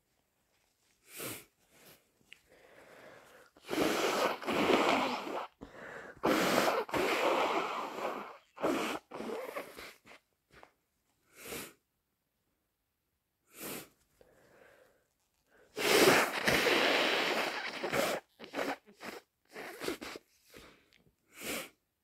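A person with a head cold sneezing and blowing their nose hard and wetly, with several long noisy blows and short sharp bursts between them, separated by quiet pauses.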